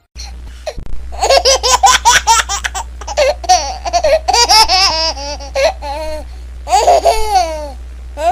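A baby laughing in runs of quick, high-pitched belly laughs, each run made of rapid pulses, with short pauses between runs and a steady low hum underneath.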